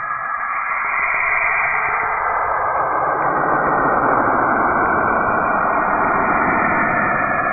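NASA space recording presented as the sound of the planet Saturn: a steady, rushing hiss like radio static that swells and grows louder about three seconds in.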